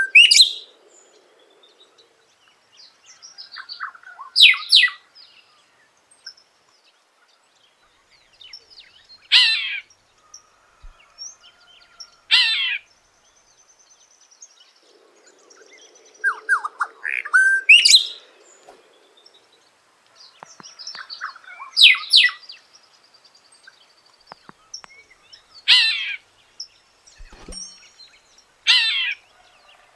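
A cacique singing: loud, sharp, whistled phrases repeated every three to five seconds, with softer chirps between them.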